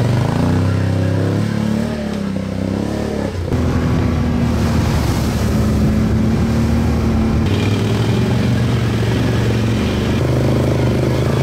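Quad bike engines running under load on a steep, rough track. The engine note rises and falls for the first few seconds, then runs steadier, with sudden shifts in pitch.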